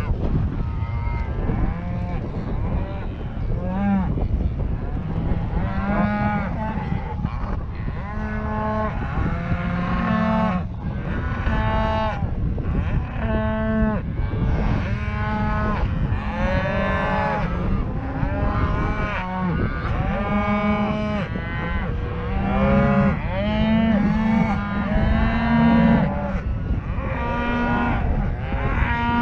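Herd of beef cows and calves mooing, many calls overlapping. A few calls early on, then a nearly continuous chorus of bawling from about six seconds in.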